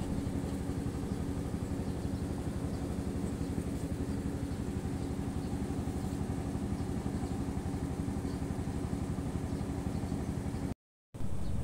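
An engine idling steadily with a fast, even beat, cutting out briefly near the end.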